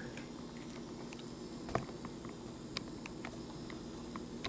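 Faint, irregular small clicks and taps as the guard of a Reichert phoroptor's cross-cylinder is worked up and down by hand to draw 3-in-1 oil under its washer, over a steady low hum.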